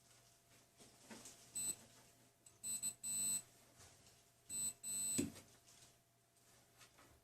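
Multimeter continuity tester beeping about five times, short and longer beeps with gaps between, as the probes are touched to the power cable's wire ends. A few light knocks come in between. The beeps signal that the conductors are intact and that the cable is not the fault.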